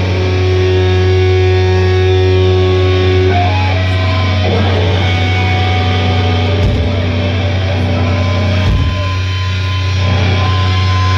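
Live heavy band playing loud distorted electric guitars and bass, holding a droning low chord with long sustained notes ringing above it. Two low drum thumps land about two seconds apart in the second half.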